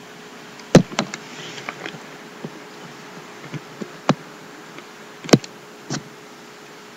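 Suppressed spring-powered Smith & Wesson airsoft pistol shooting: a handful of sharp snaps, the loudest about a second in and others around four and five seconds in, with softer clicks and knocks between them.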